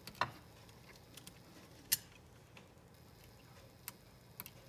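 Scattered small clicks and taps from fingers and a plastic tool working the wire turns of coil L2 on a QCX+ transceiver circuit board, spreading the turns apart; the sharpest click comes about two seconds in.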